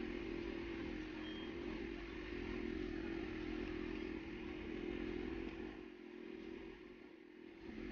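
Steady motor-like hum with a low rumble underneath; the rumble fades about six seconds in while the hum carries on.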